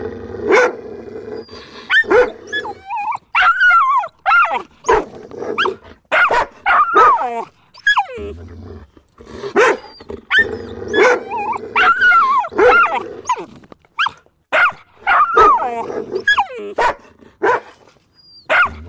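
Dog barking in bouts of a few short barks, with pauses of a second or two between bouts.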